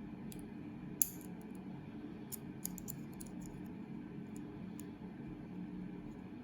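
Small metallic clicks and taps of a lock pick and tension wrench working in the keyway of a Kryptonite heavy-duty padlock held in the hand. One sharper click comes about a second in, a quick cluster of clicks around two and a half to three seconds, and scattered lighter ticks after, over a steady low hum.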